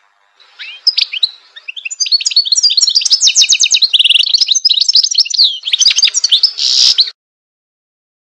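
European goldfinch singing: a fast twittering song of high, quickly changing notes with a short rapid trill in the middle. It starts about half a second in and cuts off suddenly about seven seconds in.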